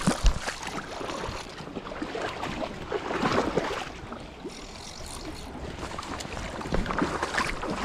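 Shallow creek water splashing and sloshing while a hooked trout is played and netted, with clicks, knocks and rustles of handled fishing gear and a sharp knock just after the start.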